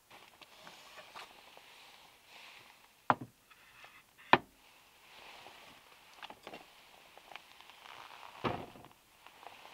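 Groceries being handled in a storage box: light rustling of a paper bag and packaging, with three sharp knocks as items are lifted out and set down, the second about four seconds in the loudest.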